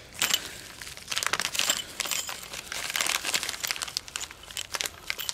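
Plastic bag crinkling and rustling in irregular crackles as it is handled.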